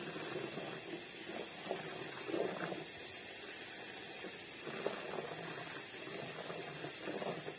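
Garden hose running into a bucket of foamy spray mixture, its water jet stirring the liquid: a low, steady hiss.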